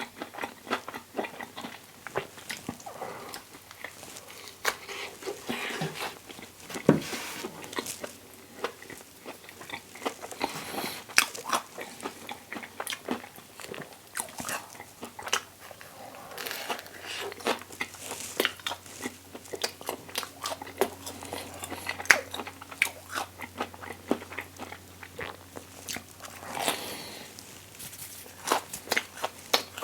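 Close-miked biting and chewing of a toasted English muffin sandwich with vegan sausage and cheese: irregular crunches and mouth clicks. A faint steady hum comes in about halfway.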